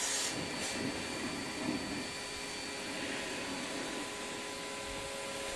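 Split-type air conditioner's outdoor unit running after cleaning: a steady machine hum with a few constant tones, with brief hisses near the start.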